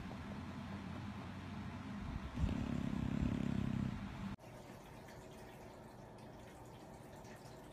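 A sleeping bulldog snoring: a long, low, loud snore from about two and a half to four seconds in, with softer breathing before it. A little after four seconds the sound cuts off abruptly to a faint hiss with light ticks.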